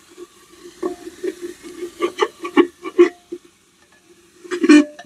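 Metal spatula scraping and knocking against the inside of an aluminium pressure cooker while stirring frying onion-and-spice masala: a quick run of scrapes with light metallic rings, a short pause, then a louder flurry of strokes near the end.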